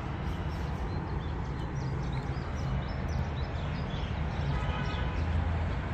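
Outdoor city ambience: a steady low rumble of street traffic, with small birds chirping in short high calls through the middle.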